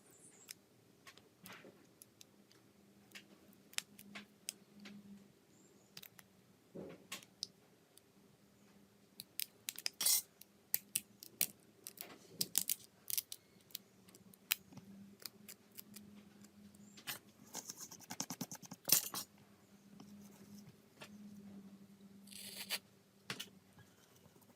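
Small tools and phone parts clicking, tapping and scraping on a hard work surface in scattered ticks. A quick rattling run of ticks comes about 18 seconds in, with a brief hiss near the end. A faint low hum runs underneath.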